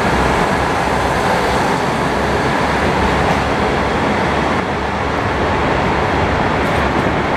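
JR Hokkaido KiHa 183-5200 series diesel multiple unit pulling out, its diesel engines and wheels making a loud, steady running noise as the last car passes and moves away.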